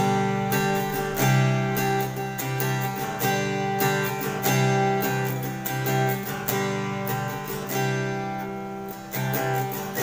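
Thomson TS-388 junior-size cutaway acoustic guitar, chords strummed in a steady rhythm and left ringing.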